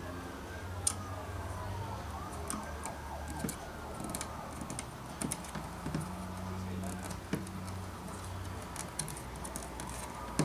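Scattered light clicks and taps of fingertips on a plastic BMW E90 kidney grille as vinyl overlay strips are pressed onto its slats, over a low steady hum.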